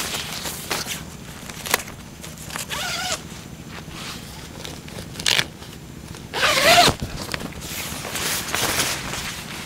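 Tent door zipper pulled in several short runs, the loudest about six and a half seconds in, with the tent's fabric rustling and a sharp click in between.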